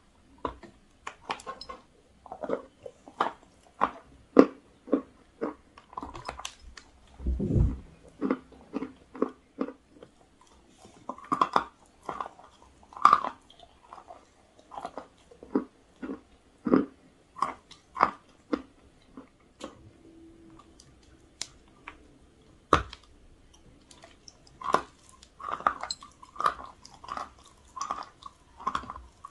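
Close-miked biting and chewing of a chalk block coated in chalk and clay: a steady run of sharp, crisp crunches, about one or two a second, as pieces break between the teeth.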